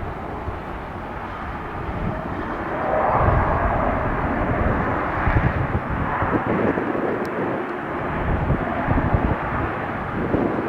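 Jet engines of an Airbus A320neo airliner landing: a broad, steady rumble that swells about three seconds in and stays strong.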